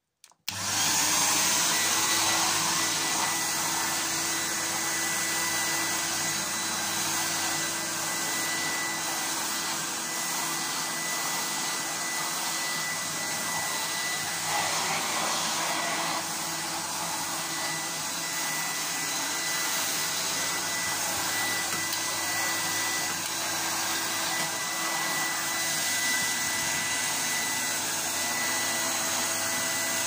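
1987 Numatic Henry HVR200 vacuum cleaner motor switched on about half a second in, then running steadily: a loud rushing of air with a high steady tone over it.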